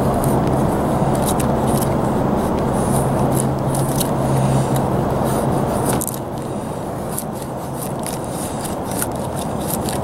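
A knife blade shaving thin curls down a split stick of dry wood for a feather stick: a run of short, crisp scraping strokes. Under it runs a loud, steady low rumble with a hum that drops away suddenly about six seconds in.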